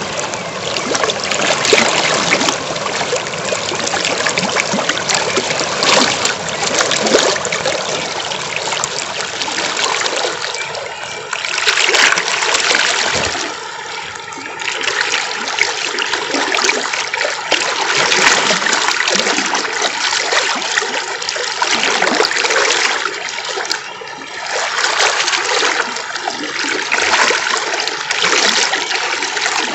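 River water rushing and splashing over rocks, a steady loud rush with no let-up apart from two brief softer moments.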